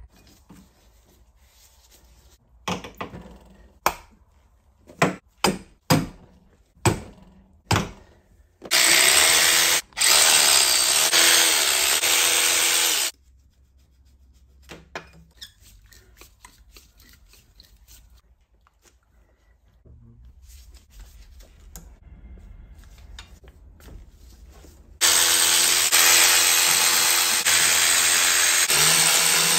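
Several sharp clicks and knocks of tools on metal, then a power tool running in two long bursts of about four and five seconds while the water pump bolts are undone.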